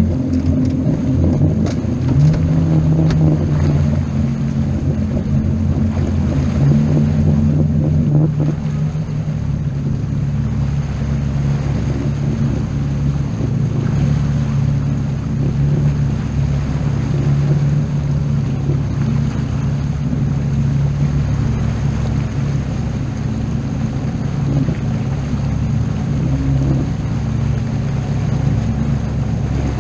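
Motorboat engine running steadily under way, its note shifting slightly about two and eight seconds in, over wind and water noise.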